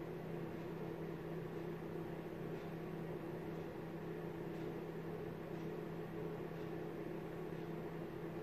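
Steady low hum of an electric motor, holding two constant low pitches without change.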